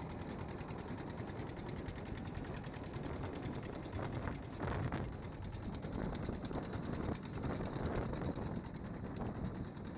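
A wooden river boat's engine running steadily, with a fast, even beat.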